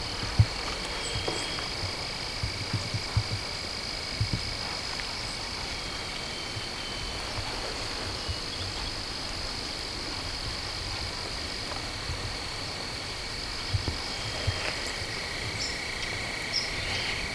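A steady evening chorus of calling animals, a continuous high trill at two pitches. A few soft low thumps sound over it, the sharpest about half a second in.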